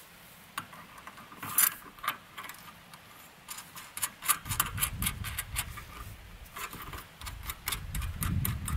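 Irregular metallic clicks and clinks of steel mounting brackets and a bolt being handled and fitted against a solar panel's aluminium frame, sparse at first and coming more often after a few seconds.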